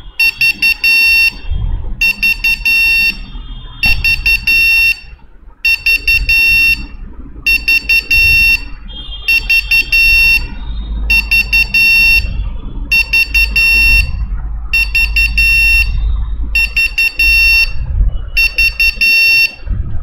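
Alarm buzzer of a DIY Arduino DS3231 alarm clock going off: a high-pitched beeping in rapid pulses, grouped into bursts of about a second with short gaps, repeating about every two seconds. It sounds because the clock's time has matched the set alarm time.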